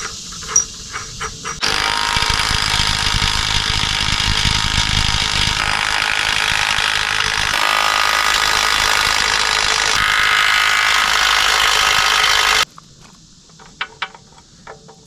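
Angle grinder grinding down steel weld where the frame bolts sit, a loud, steady, high grinding noise whose pitch shifts a few times as the load changes. It starts about two seconds in and cuts off suddenly near the end, followed by a few light clicks.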